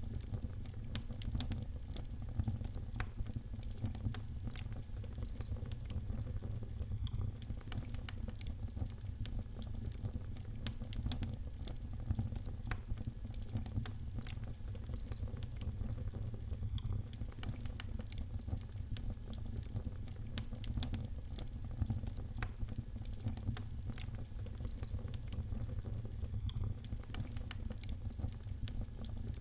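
Fire crackling in a fireplace: many small, irregular snaps and pops over a steady low rumble.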